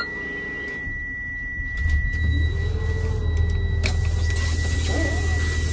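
School bus engine coming up about two seconds in and settling into a steady low-pitched run, under a steady high-pitched electronic tone from the dash.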